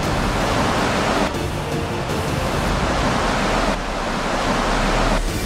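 Floodwater rushing and pouring down a flight of stairs into an underpass, a steady, dense water noise.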